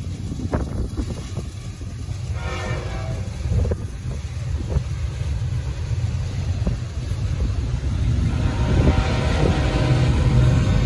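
Double-stack intermodal freight train rolling past: a steady low rumble of steel wheels on rail with scattered sharp clanks, growing louder near the end as the train picks up speed.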